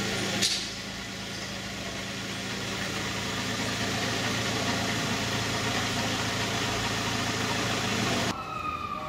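An engine running steadily with a low hum. It cuts off abruptly near the end, and a siren's falling wail takes over.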